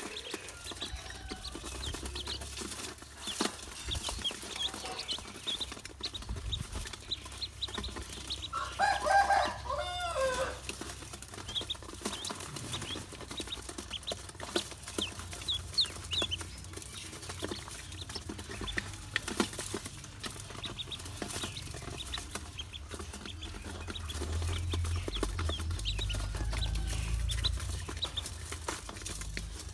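Ducklings peeping in short, high chirps while their bills peck feed off the floor of an aluminium basin, making many small clicks. About nine seconds in, a louder, lower call, falling in pitch, breaks in for a second or two.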